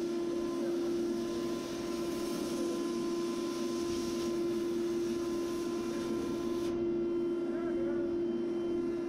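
Plasma cutter hissing as it cuts through an overhead steel beam, the hiss stopping abruptly about two-thirds of the way through. A steady machine hum runs underneath.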